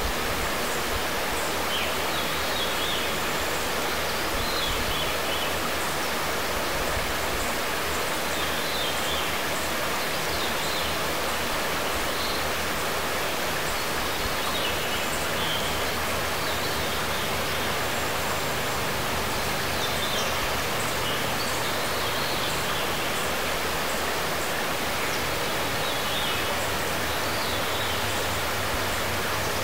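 Shallow river running over a gravel bed: a steady rushing of water, with short high chirps every few seconds.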